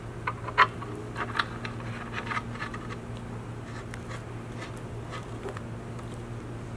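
Half-inch metal pipe fittings being screwed together by hand: clinks and scraping of metal threads. A sharp clink comes about half a second in, then a run of smaller clicks over the next two seconds, then fainter ticks, over a steady low hum.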